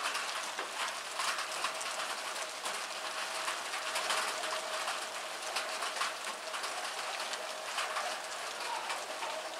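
Rain-like patter: a steady hiss made up of many small drops ticking on a surface.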